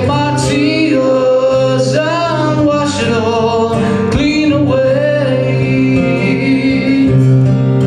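A man singing a folk song live, accompanying himself on acoustic guitar.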